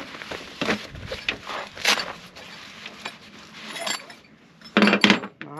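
A fabric carrying bag rustling and being handled, with light clicks and clinks of metal stakes knocking against each other, louder for a moment about five seconds in.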